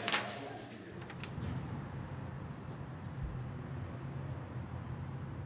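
A brief rip of paper being torn from a wall right at the start, then a steady low hum with a faint click about a second in.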